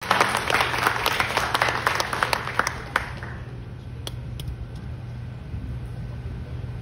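Audience applauding, dying away about three seconds in, leaving a steady low hum of the hall with a couple of light knocks.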